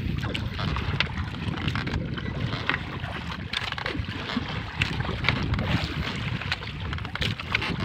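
Wind buffeting the microphone over open sea, with scattered small knocks, taps and splashes as a fishing net is hauled by hand aboard a wooden outrigger boat.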